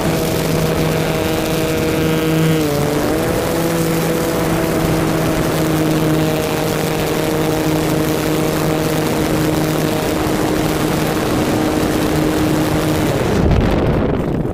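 Onboard sound of an RC model airplane in flight: its motor and propeller run at a steady pitch against wind rushing over the microphone. The pitch dips briefly about three seconds in. The motor cuts off about a second and a half before the end, leaving buffeting wind noise.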